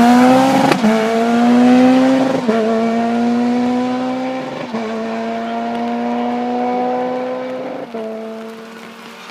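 Rally car engine accelerating hard away up through the gears: pitch climbing in each gear with four quick upshifts, each gear held longer than the last, the sound fading as the car draws off.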